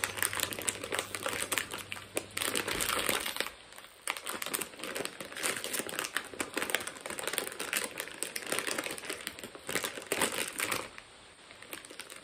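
Plastic snack packet crinkling as it is handled and rummaged through, in dense irregular crackles that let up briefly about four seconds in and again near the end.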